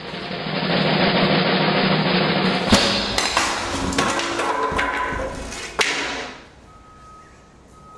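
Snare drum roll for about three seconds, ending in a loud crash, followed by several sharp knocks and clatter as a wooden tree limb strikes the LED strobe warning lamp.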